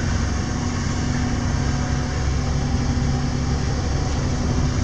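Motorboat engine running steadily under way, a constant hum with a steady rushing noise over it.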